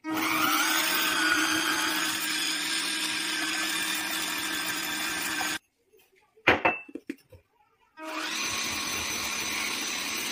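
Cordless electric hand mixer whipping egg whites in a bowl: a steady motor whine that runs for about five and a half seconds, stops, and starts again about two and a half seconds later.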